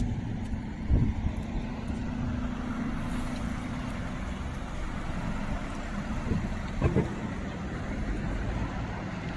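Road traffic at a street crossing: cars running on the road close by, with a steady engine hum over the first three seconds and a couple of short knocks.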